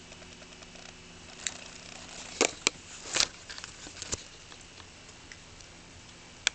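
A handful of short sharp clicks and knocks over a faint steady hiss. Several come close together in the middle and one comes near the end.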